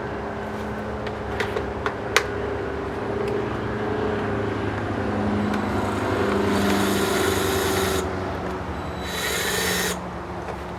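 A handheld power tool runs in two short bursts, the first about a second and a half long and the second about a second, while fasteners are taken off a small outboard motor. A few sharp tool clicks come in the first couple of seconds, over a steady low hum.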